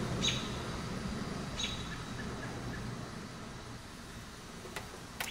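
A bird gives two short, high, falling chirps about a second and a half apart. Near the end come two sharp clicks.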